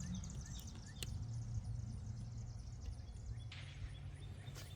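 Faint bird chirps over a low steady hum, with a sharp click about a second in and another near the end.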